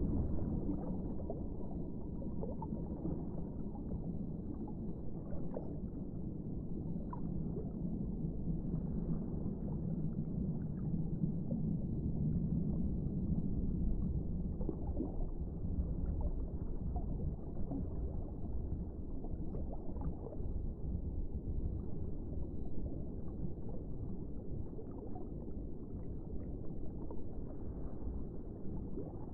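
Underwater water noise: a steady low, muffled rush with faint scattered clicks and pops.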